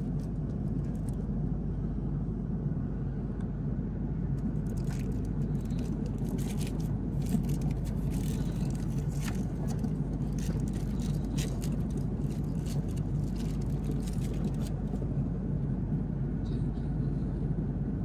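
Steady low drone of an airliner cabin in flight. Scattered light clicks and rustles come through the middle.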